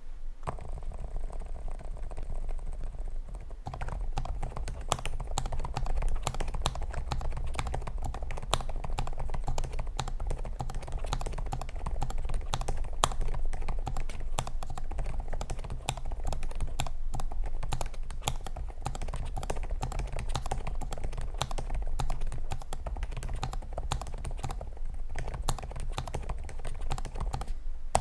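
Typing on a Lofree Flow2 low-profile keyboard with Kailh Void silent linear switches, polycarbonate plate and stock keycaps: a continuous run of key presses, sparser for the first few seconds and quicker and denser from about four seconds in.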